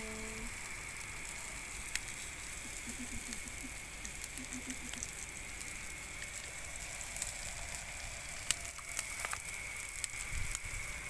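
Food sizzling on a barbecue over a fire: a steady hiss with scattered sharp crackles and pops.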